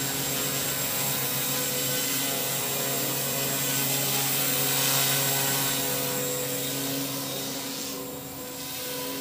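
OXY 2 Pro 215 electric RC helicopter flying, its Lynx EOX brushless motor and 215 mm main rotor giving a steady whine and whir at a governed head speed of about 4,800 rpm. The sound swells about five seconds in and drops back near the end.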